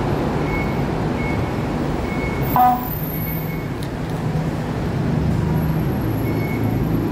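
Ticket-hall ambience at an elevated train station: a steady low rumble and hum of background noise, with faint short high beeps now and then. About two and a half seconds in comes one brief, louder beep-like tone.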